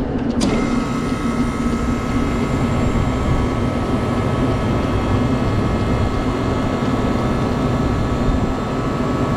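Walk-in freezer condensing unit running with a steady hum; about half a second in, a fan-like hiss and a faint whine switch on abruptly and keep going. The unit is short cycling, cutting out on low pressure because it is low on refrigerant charge.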